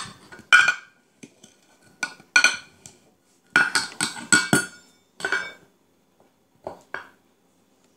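Metal measuring cup clinking and knocking against a stainless steel pot as flour is scooped and tipped in: about a dozen sharp clinks in clusters, with short gaps between them.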